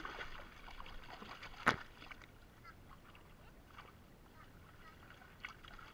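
A large fish splashing as it hits the pond water, then water sloshing around a net, with one sharp slap about a second and a half in that is the loudest sound.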